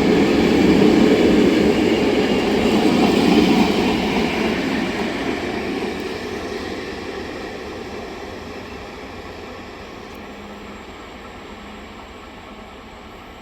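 Passenger train hauled by a 060-EA electric locomotive rolling out of the station: a loud rumble of wheels on rails that dies away steadily after about four seconds as the train moves off.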